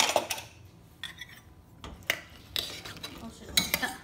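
Steel ladle clinking and scraping against the inside of a pressure cooker pot while scooping cooked chickpeas, in irregular strokes about a second apart, with a sharp metal clank at the very start.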